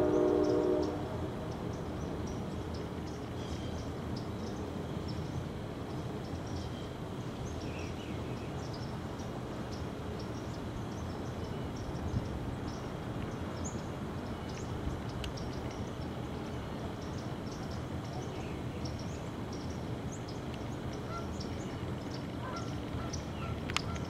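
A deep, steady honking tone fades out about a second in. After it comes a steady outdoor background hiss, with many short, high bird calls scattered throughout.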